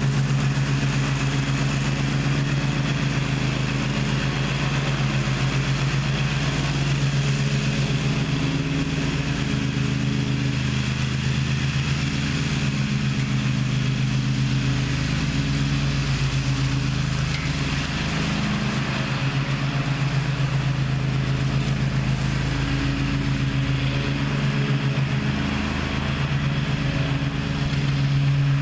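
Riding zero-turn lawn mower engine running steadily at a constant speed, with a loud even hum and no pauses.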